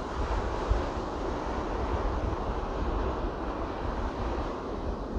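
Wind buffeting the microphone with a fluttering low rumble, over the steady wash of ocean surf on the beach.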